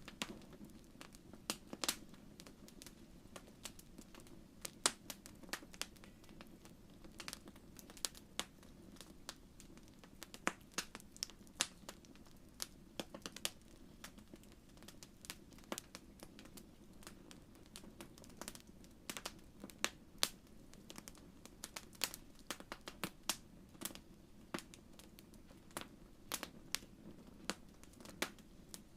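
Fireplace fire crackling: irregular sharp pops and snaps, a few a second, over a low steady rumble.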